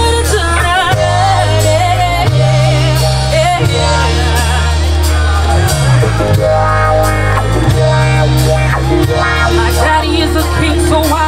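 Live band music: a woman singing a melody over bass guitar, guitar and drums, with the bass holding long notes that change every second or two.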